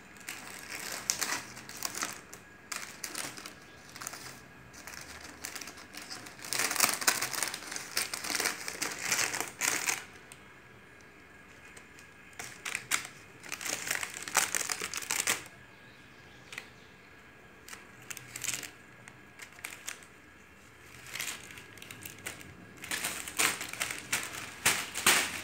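Thin clear plastic bag crinkling in irregular bursts as cats paw at it and pounce on it, with short quiet spells between bouts.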